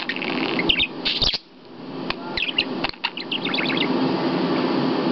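Budgerigar chirping in short high bursts, with a quick run of chirps in the middle, over a steady low background hum.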